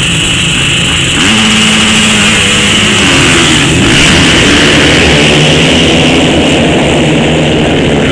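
A pack of motocross bikes revving on the start line, then accelerating hard off the start gate and away. The engine noise is loud throughout, with pitches rising and growing louder about a second in as the bikes launch.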